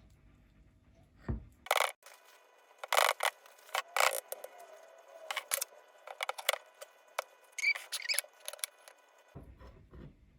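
Metal utensils clinking and scraping against a dish while a portion of layered dessert is cut and served: a scattered series of sharp clicks and clinks.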